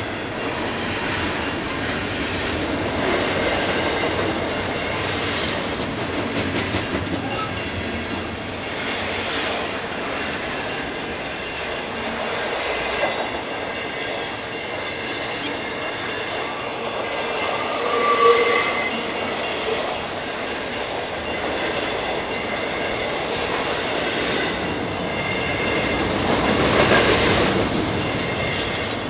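Double-stack intermodal freight train rolling past: a steady rumble of steel wheels on rail with clickety-clack over the joints. It swells louder a few times, with a brief pitched wheel squeal about two-thirds of the way through.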